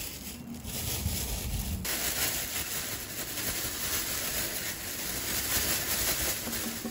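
Wind rumbling on the microphone for about two seconds, then a steady rush of running water that starts suddenly and continues.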